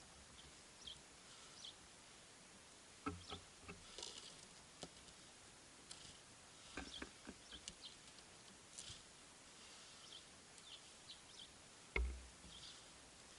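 Small songbirds at a seed feeder giving short, high chirps scattered throughout, with several sharp taps and knocks, the loudest one near the end.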